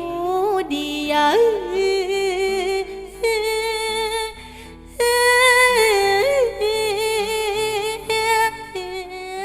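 Closing passage of a Thai-language song: a singer holds long, wavering wordless notes over a backing accompaniment.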